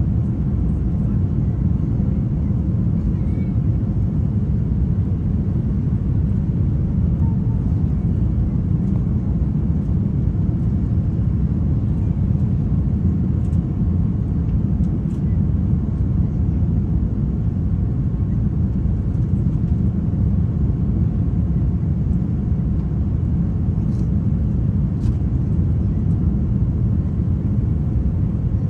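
Airbus A350-900 cabin noise: a steady, even low rumble of engines and airflow heard from inside the passenger cabin, with a few faint clicks.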